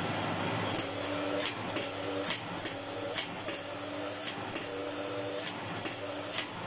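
Kelner 1400 cylinder vacuum cleaner running with a steady rush of air, with a sharp tick recurring about once a second from about a second in. The owner takes the ticking for a sign of a partially burnt-out motor.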